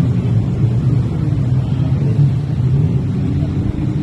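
Engines of a large group of jet skis running together at speed, a steady, dense low rumble.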